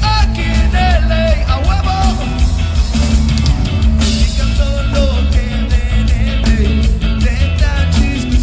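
Live rock band playing loudly, with the drummer on a full drum kit and a bending melodic lead line over a heavy low end.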